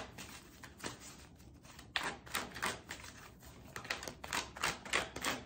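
Tarot cards being handled and flipped through the deck: a run of light, uneven clicks and snaps. A few come near the start, and they pick up into a steady run from about two seconds in.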